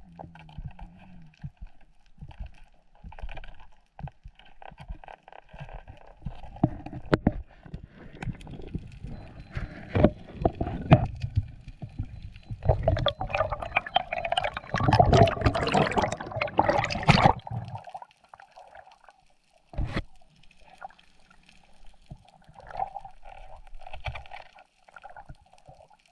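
Sea water sloshing and gurgling around the camera during a spearfishing dive. A little past the middle there is a louder stretch of bubbling and splashing lasting about four seconds, with a few sharp knocks scattered through the rest.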